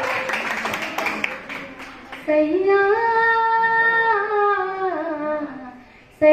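A woman singing unaccompanied into a microphone: one long held phrase that rises and then falls away, after about two seconds of crowd noise. A new phrase begins just at the end.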